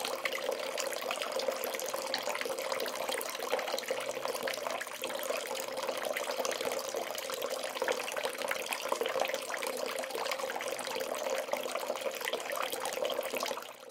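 Bath tap running into a bathtub, a steady splashing stream of water that fades out near the end.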